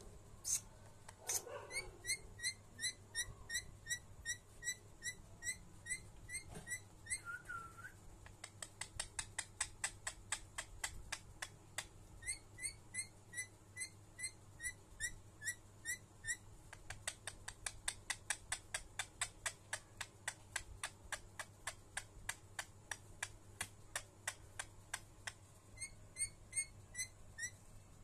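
Rose-ringed parakeet giving long runs of short, rising, high-pitched chirps, about two to four a second, with a brief pause now and then.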